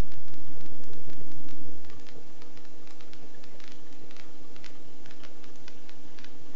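Helicopter cabin noise: the steady drone of the engine and rotors, holding several steady tones, with scattered light ticking over it. The level steps down slightly about two seconds in.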